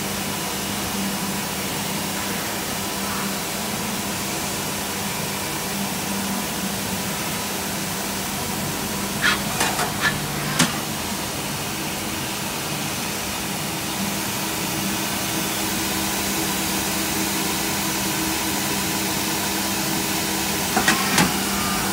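1997 Citizen Cincom L32 sliding-head CNC lathe running, a steady machine hum with an even hiss. A few sharp clicks about ten seconds in and again near the end.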